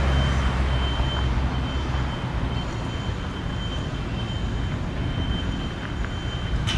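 Street traffic passing, with a heavy vehicle's low rumble that fades out about two seconds in.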